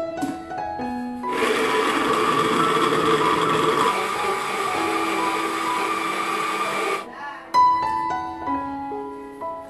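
Electric kitchen blending appliance running for about six seconds. It starts abruptly about a second in and cuts off suddenly near the seven-second mark, with a steady motor whine over dense churning noise. Piano background music plays throughout.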